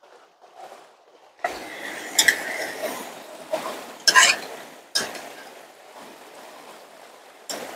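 Serving utensil clinking and scraping against a cooking pot and dishes as food is dished out. The first clink comes about a second and a half in, followed by several sharp clinks at irregular intervals.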